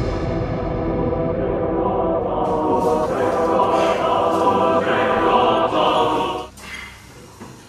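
Music with choir-like singing, which stops abruptly about six and a half seconds in.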